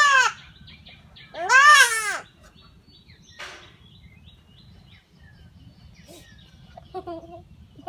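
A goat kid bleating loudly while held down and castrated: the end of one bleat at the very start and one full bleat about a second and a half in. After that only faint high bird chirps.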